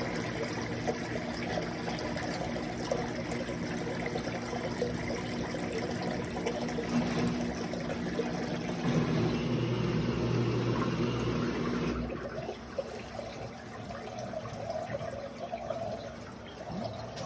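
Washing machine drain pump running with a steady low hum while water rushes out through the drain hose during a drain cycle. About twelve seconds in the pump hum stops and a quieter flow of water continues.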